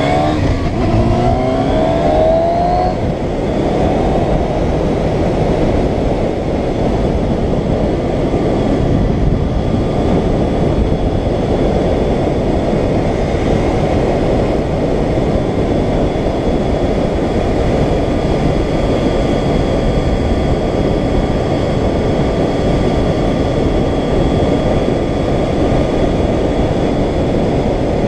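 Yamaha FZR600R sport bike's inline-four engine rising in pitch under acceleration for the first few seconds, then cruising steadily under heavy wind rush on the helmet-mounted microphone.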